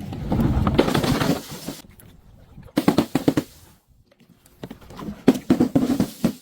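Something brittle being crushed, crackling and crunching in three bursts of rapid snaps: a long dense one at the start, a shorter one about three seconds in, and a spattering one near the end.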